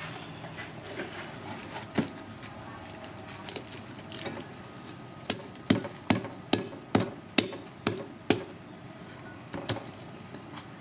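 Cleaver chopping hard on a cutting board: a quick run of about eight sharp knocks, roughly two or three a second, with a single knock before and after.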